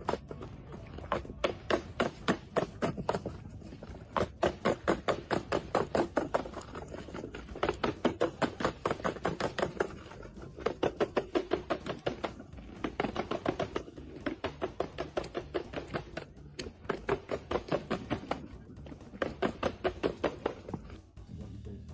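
Skateboard wheels clacking over the joints between stone paving slabs as the board rolls downhill: a quick, regular run of clacks, about five a second, broken by a few short gaps.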